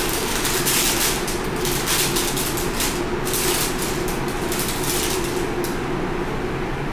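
Paper wrapping of a sterile glove pack rustling and crinkling as it is unfolded by hand, over a steady hum; the rustling dies away near the end.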